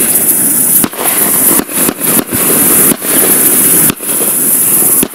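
A volley of shotgun shots from hunters on a distant dike, about eight sharp reports in irregular quick succession: long-range shooting at a flock of ducks passing high overhead.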